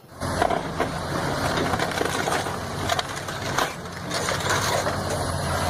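Caterpillar 336 hydraulic excavator's diesel engine running under a dense crunching and splintering of wood as its bucket tears into a wooden house roof and wall.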